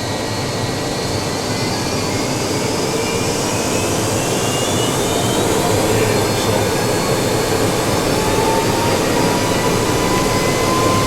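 Rolls-Royce RB211 turbofan of a Boeing 757 spooling up during a ground power run: a steady jet rush with whining tones that slowly rise in pitch as it grows louder.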